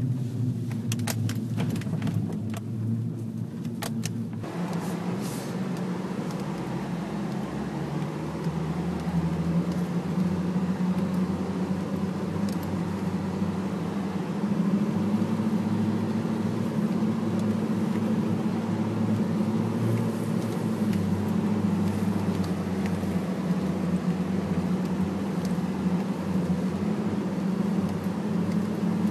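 Pickup truck on snow tracks driving through deep snow: the engine runs with a steady low drone, with light rattling clicks in the first few seconds. From about four seconds in, a wide rushing track-and-snow noise joins it.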